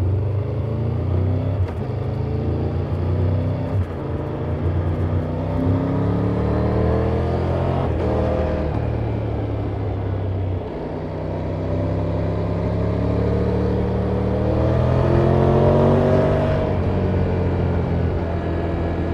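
2024 Triumph Tiger 1200 GT Pro's 1160 cc inline-three engine through its stock exhaust, pulling up through the revs twice. The pitch climbs for several seconds and drops back about eight seconds in. It climbs again and falls away near the end.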